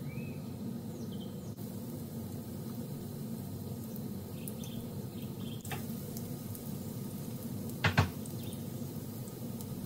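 Egg-battered bread slices shallow-frying in oil in a nonstick pan, over a steady low hum. Near the end come two sharp knocks in quick succession as another slice is laid in the pan.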